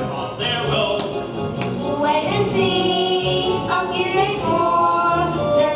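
A group of children's voices singing a show tune together.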